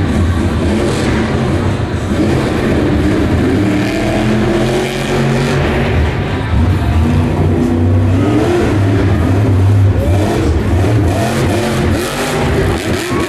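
Grave Digger monster truck's supercharged V8 engine revving hard, the note rising and falling with the throttle as the truck drives and lifts into a wheelie.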